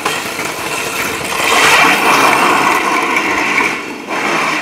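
Plastic filament-spool wheels of a wooden kart rolling fast over a concrete floor: a loud, steady grinding rumble that swells about a second and a half in and dips briefly near the end.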